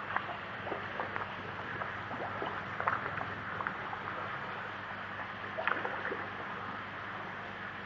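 Koi crowding and splashing at the pond surface while feeding: a run of small, irregular splashes and plops over a steady background hiss and low hum.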